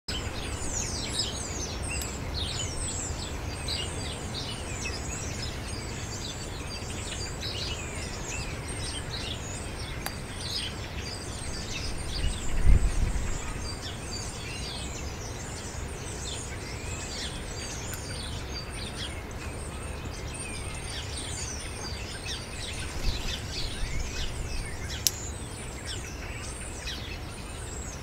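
Many songbirds singing and calling at once: a busy chorus of overlapping chirps and trills over a low rumbling noise that swells briefly about twelve seconds in.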